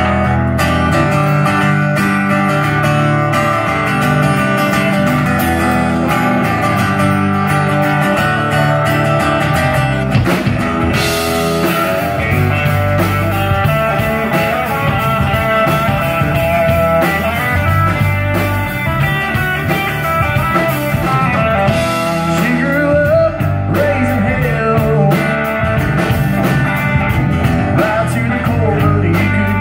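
Live country-rock band playing: electric guitar, acoustic guitar, bass guitar and drums, with a steady beat.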